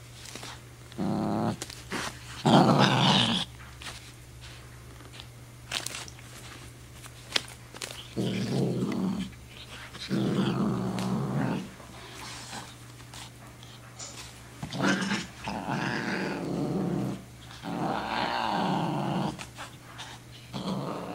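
Savannah cat growling in several low bouts, each a second or two long, with short pauses between them.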